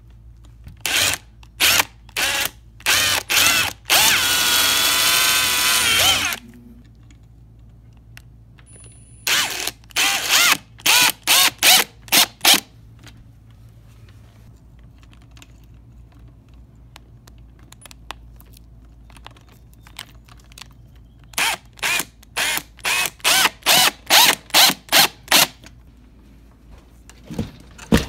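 Power drill run in short trigger pulses, with one longer run of about two seconds whose motor whine wavers in pitch, drilling and driving longer screws into the split wood of a door jamb to hold the lock plate.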